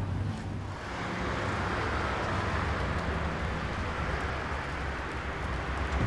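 Street traffic: a vehicle's steady engine rumble and road noise, building about a second in and holding steady.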